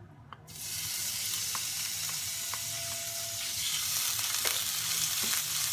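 Thin-sliced beef kalbi sizzling as it lands in a hot oiled frying pan: the hiss starts suddenly about half a second in and then holds steady. A few light taps of the spatula against the pan sound over it.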